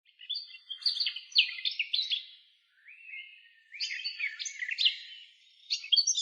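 A songbird singing long, varied phrases of rapid chirps and whistles, with short pauses between phrases.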